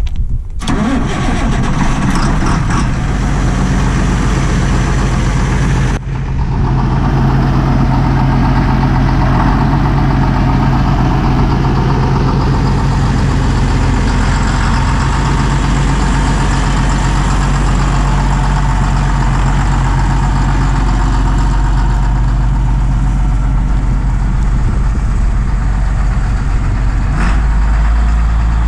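John Deere 8200 tractor's six-cylinder diesel engine running steadily at idle, with a low rumble that grows stronger near the end.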